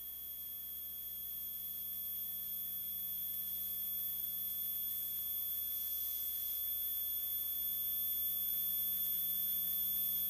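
Steady high-pitched line-up test tone over tape hiss and a faint low hum, the reference tone that goes with colour bars on a videotape.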